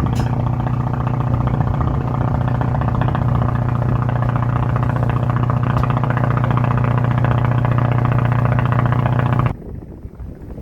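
Steady, loud motor or engine hum with a strong low pitch that holds level, cutting off suddenly about nine and a half seconds in.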